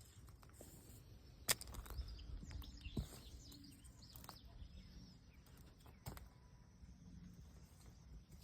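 Quiet outdoor background with faint bird chirps and a few sharp clicks or knocks, four in all, spaced a second or more apart.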